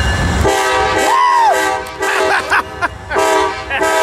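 Amtrak diesel locomotive's multi-chime air horn sounding as the train approaches the station: a long blast, a couple of short blasts, then another long blast.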